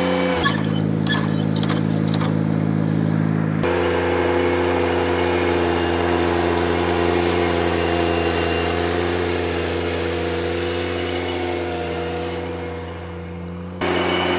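Ventrac 4500 compact tractor's engine running steadily while it drives a power rake attachment through tilled soil. There are sharp rattling clicks during the first few seconds.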